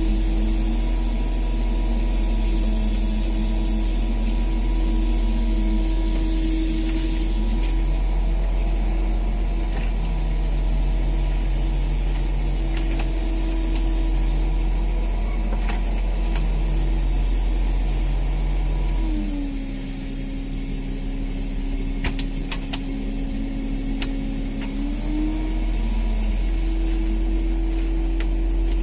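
Fishing boat machinery, the engine and the line hauler, running with a steady drone. About two-thirds of the way through, the pitch drops and the sound eases for several seconds, then it rises back. A few sharp knocks are heard during the low stretch.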